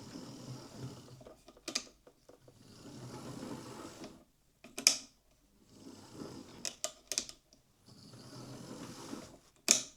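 Hornby Railroad Class 9F OO gauge model locomotive's motor and gear train running on a test track in four short runs, with sharp clicks in the pauses between them. It now runs without the gears slipping in reverse.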